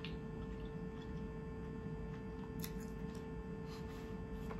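Snow crab shells being picked apart by hand: a few faint cracks and clicks, over a steady low hum.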